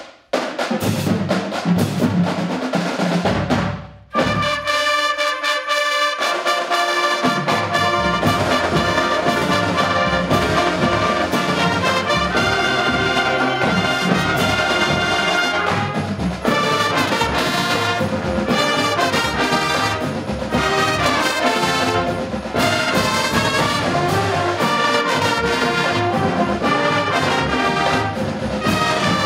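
High school band playing, with trumpets and trombones carrying the music. There is a short break about four seconds in, then the band continues.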